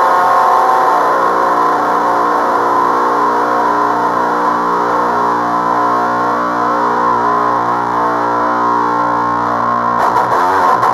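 Electric guitar played through a Swedish Chainsaw HM-2-style distortion pedal and a JHS Bonsai overdrive, both switched on: one distorted chord left to ring and slowly fade, then struck again near the end.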